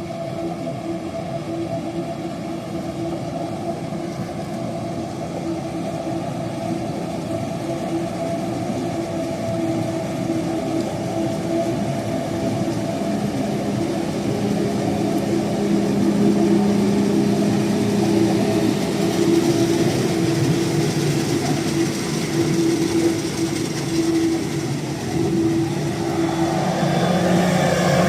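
Fendt 930 Vario tractor's six-cylinder diesel engine running at a steady pitch, growing gradually louder.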